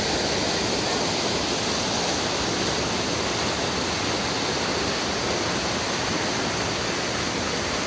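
Rushing water of a rain-swollen mountain stream cascading down waterfalls, a steady, loud noise with no change.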